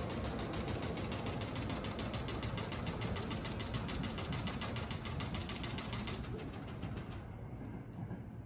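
Split-flap destination board ("patapata") clattering as its flaps turn over in a fast, even run of clicks that stops suddenly about seven seconds in, over a low steady rumble.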